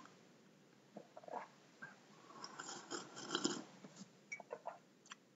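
Faint, scattered sips and swallows as a man drinks from a mug.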